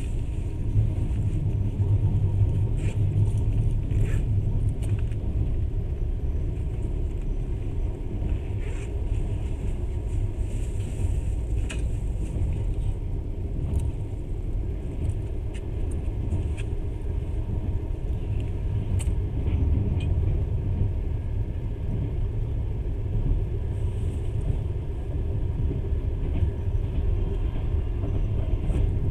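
Steady low rumble of a moving passenger train heard from inside the carriage, with a few faint sharp clicks scattered through it.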